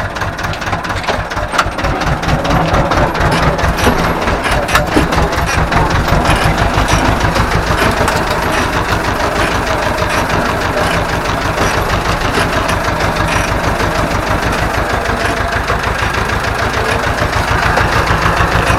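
Ursus C-330M tractor's two-cylinder diesel engine running steadily with an even low throb, with a few sharp knocks or rattles in the first few seconds.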